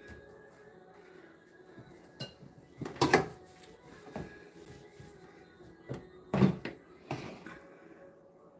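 Kitchen handling clatter: a handful of knocks and clunks of dishes or utensils being moved, the two loudest about three seconds in and about six and a half seconds in.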